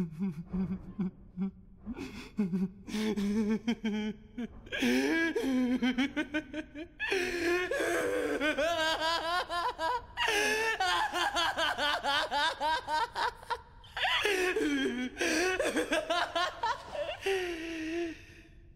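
A young man's voice-acted laughter from an anime. It starts as low chuckles and builds, about five seconds in, into long, loud, higher-pitched laughing, broken by two short pauses.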